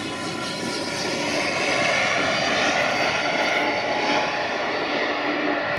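Turbofan jet engines of a Boeing 767 airliner running at high power on the runway: a steady jet noise with a high whine, growing louder over the first couple of seconds and then holding.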